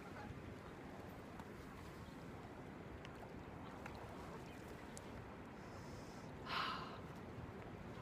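Faint, steady outdoor background noise, with one short rustle about six and a half seconds in.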